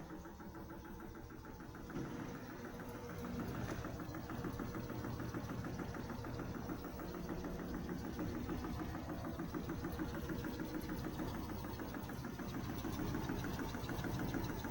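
Samsung washer-dryer in its spin cycle at maximum speed with a heavy load: a steady, fast rhythmic machine hum that picks up about two seconds in and again about four seconds in. With new shock absorbers fitted it runs without knocking or banging, swaying normally.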